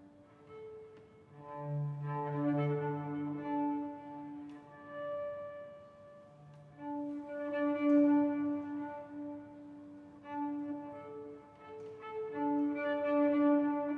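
Slow instrumental music led by bowed strings, with long held notes swelling and fading in phrases; it is loudest about eight seconds in and again near the end.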